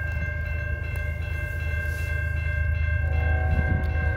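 Grade-crossing warning bell ringing steadily over a low rumble as a diesel freight train approaches; about three seconds in, the locomotive's horn starts sounding in the distance.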